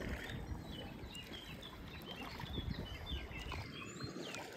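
Small songbirds chirping and twittering over a low background hum of the surroundings. A faint steady tone comes in near the end.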